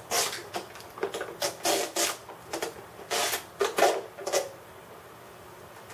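A knife cutting the tape seals and prying at the hard clear plastic display case of a GoPro camera package: a run of short scraping, crackling rasps that stops about four and a half seconds in.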